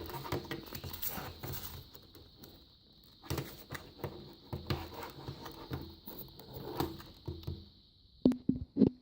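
Fidget cube and its packaging being handled: irregular rustling with small clicks and taps, and a few short louder knocks near the end.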